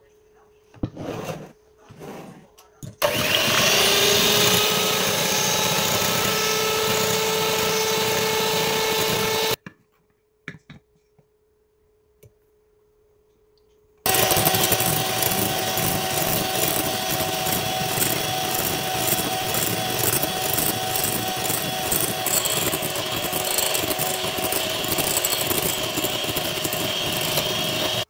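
Electric hand mixer with twin beaters whipping double cream in a glass bowl. It runs for about six seconds, stops for about four, then runs again for about fourteen seconds at a higher pitch as the cream thickens.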